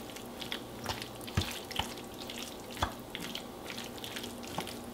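A black plastic spoon stirring a thick cream sauce through chicken, spinach and mushrooms in a ceramic casserole dish: soft wet stirring, with a few sharper clicks scattered through.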